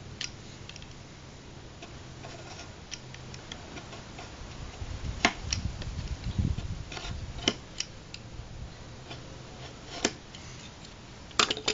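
Utility knife blade drawn along a wooden straightedge, scoring thin styrene sheet so it can be snapped along the line: irregular sharp ticks and scrapes from several strokes, two quick ones close together near the end.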